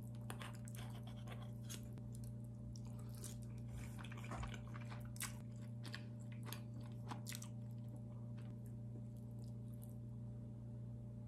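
Close-up eating sounds: someone chewing chewy rice cakes and ramen noodles in black bean sauce, with short clicks of a spoon and fork, mostly in the first seven seconds, over a steady low hum.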